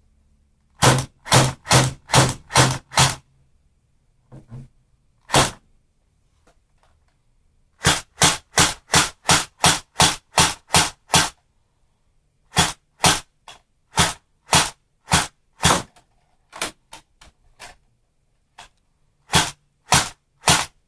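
Double Eagle M83 A2 electric airsoft gun (AEG) firing semi-auto shots, a sharp crack with a low thud each time. The shots come in quick strings of about three a second, with pauses and a few single shots between the strings.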